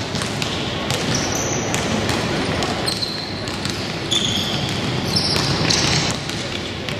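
Youth basketball game in a gym: a basketball bouncing on the hardwood and sneakers squeaking in short high chirps, over a steady background of crowd chatter.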